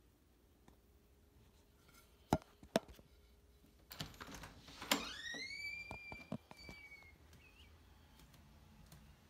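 Wooden front door being unlocked and opened: two sharp clicks from the lock, then the latch clicks and the door squeaks as it swings open. The squeak rises in pitch, levels off and holds for about two seconds.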